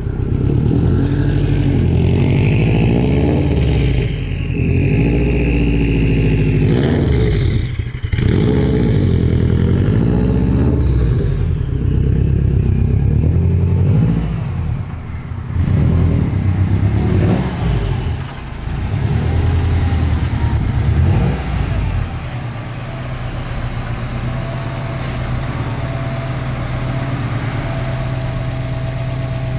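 2004 Subaru Impreza WRX STI's turbocharged 2.5-litre flat-four engine running, its note rising and falling as it is revved, breaking off abruptly a few times. For the last several seconds it settles into a steady idle.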